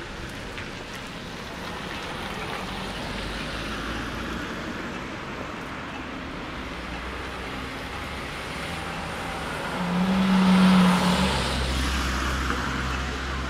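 City street traffic, cars passing. One vehicle goes by closest and loudest about ten seconds in, with a steady engine hum that lingers after it.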